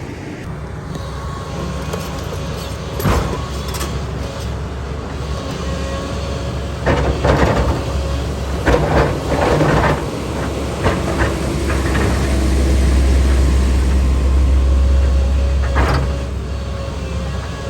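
Kobelco 380 hydraulic excavator running, its diesel engine a steady low drone, with sharp clanks and knocks: one about three seconds in, a cluster in the middle, and one near the end. The engine grows louder for a few seconds after the clanks.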